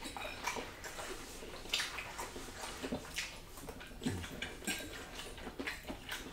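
People eating: wet chewing and mouth sounds with irregular small clicks of forks on plates.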